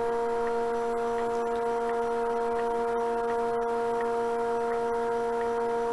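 Steady machine hum from the running wood lathe and its vacuum-chuck setup, with the bowl turning very slowly. The hum holds one unchanging set of tones throughout.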